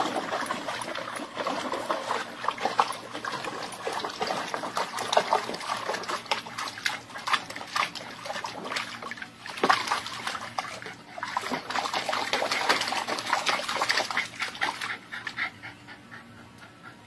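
A dog's sounds mixed with many short irregular clicks and noises, growing quieter about fifteen seconds in.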